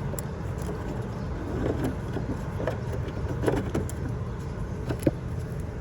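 Small plastic clicks and knocks as a turn signal bulb socket is worked into a van's headlamp housing and twisted until it locks, over a steady low rumble.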